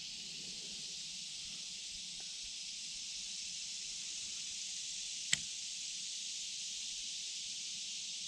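Steady high-pitched chorus of insects, with one sharp click about five seconds in.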